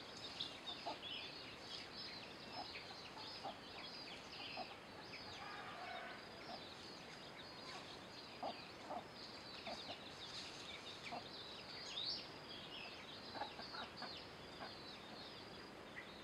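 Chickens foraging: scattered soft clucks under many quick, high chick-like peeps.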